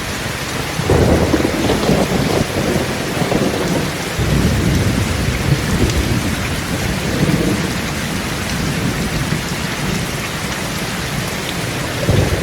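Steady heavy rain falling, with low thunder rumbling in waves that swell about a second in, again a few seconds later, and once more near the end.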